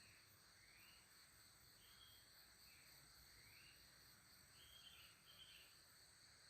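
Near silence: faint outdoor ambience of a steady high insect drone, with about six faint rising chirps, a pair of them a little before the five-second mark.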